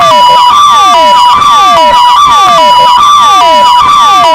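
Two electronic vehicle sirens, a Vittal and a Kingvox SPMX, sounding together. One steps back and forth between two pitches in a hi-lo pattern. The other repeats quick falling sweeps several times a second.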